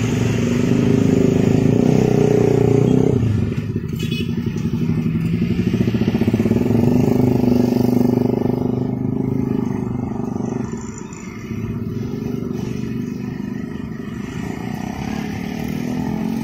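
Road traffic passing close by, mostly motor scooters with some cars and small pickup trucks, engines running at low speed. Loudest in the first few seconds as scooters pass near, easing off later.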